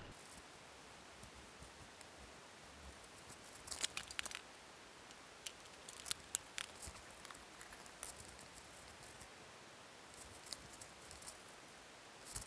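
Faint scattered clicks and plastic rattling as fishing tackle is handled: the latches and lid of a clear plastic tackle box clicking as it is opened and its lures are sorted, then a zip-top plastic bag crinkling near the end.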